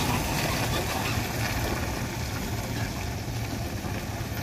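Diesel dump truck engine running steadily as the truck crawls through deep mud.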